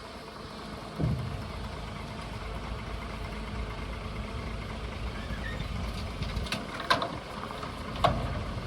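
Dump truck engine running steadily; it grows louder about a second in, with a few sharp knocks near the end.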